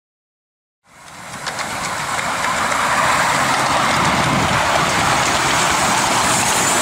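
An air-smoothed Bulleid Pacific steam locomotive running close by: a steady hiss of steam over the rumble of its wheels and running gear, fading in after about a second.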